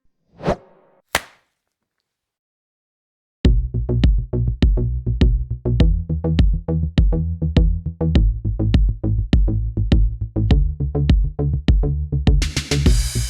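Two brief whoosh-like transition effects, a moment of silence, then electronic music with a drum-machine beat that starts about three and a half seconds in. A bright cymbal-like wash comes in near the end.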